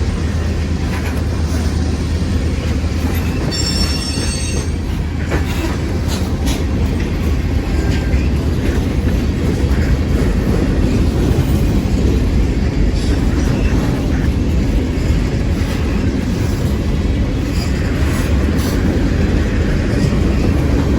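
Canadian National freight train rolling past: a steady low rumble of cars on the rails with scattered clicks, and a brief high squeal of wheel on rail about four seconds in.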